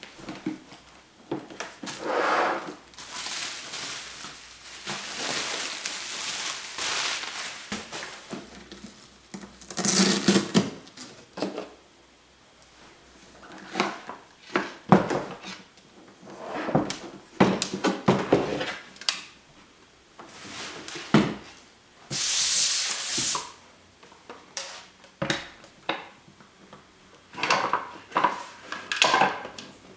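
A hard plastic lens case being opened and a large telephoto lens lifted out and handled: scattered knocks, rubbing and rustling, with two longer swishing stretches, one early on and one about two-thirds through.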